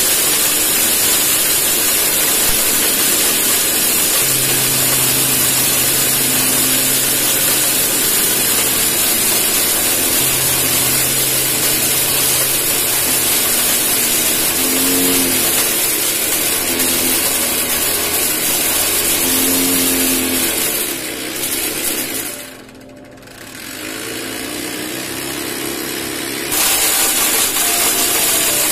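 Homemade electric corn cracker, built from a bread tin and driven by a small electric motor, running and cracking dried corn kernels: a loud, steady rushing, grinding noise. About two-thirds through it drops to much quieter for a few seconds, then comes back suddenly near the end.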